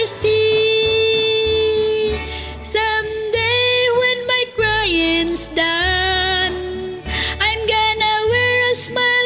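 A woman singing over a karaoke backing track with a bass line, holding one long note for about two seconds near the start, then singing shorter phrases.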